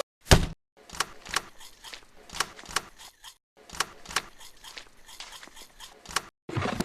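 A run of sharp clicks and taps at an uneven pace of roughly two a second, with one heavier thump just after the start.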